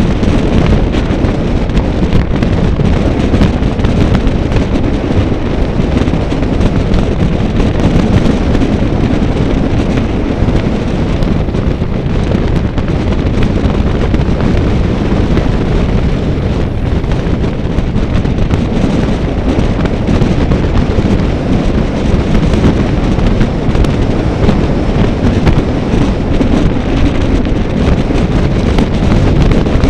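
Steady wind noise buffeting the microphone, a continuous low rumble with no break.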